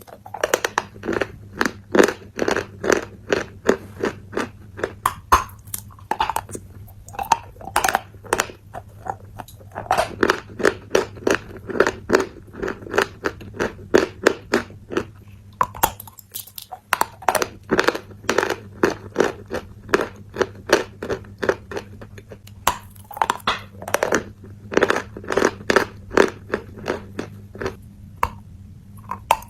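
A person chewing crunchy food: quick crunches a few times a second in runs, with short pauses, over a steady low hum.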